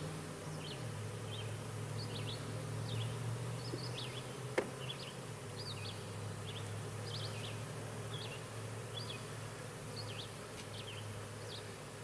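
Honey bees buzzing around an opened hive, a steady low hum. A single sharp click sounds about four and a half seconds in.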